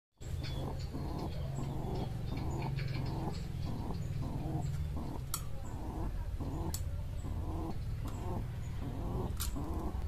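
Crested fantail pigeons cooing: a rhythmic run of short, low coos, about two a second, over a steady low hum, with a few sharp clicks.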